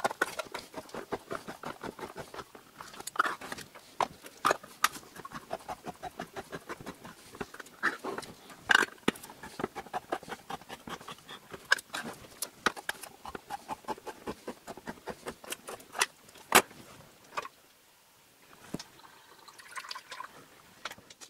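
Manual can opener cranked around the rims of tin cans: a steady run of small clicks from its turning gear, broken by a few sharper knocks as the cans and opener are handled. The clicking stops briefly near the end.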